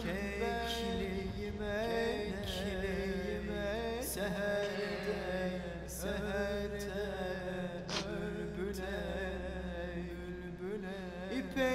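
Background music: a slow, wavering chant-like melody over a steady drone, with a sharp strike about every two seconds.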